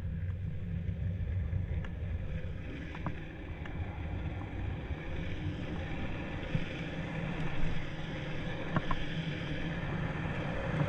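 Downhill skateboard's wheels rolling on asphalt, a steady rumble that grows brighter as the board picks up speed, with wind rushing over the microphone and a few light clicks.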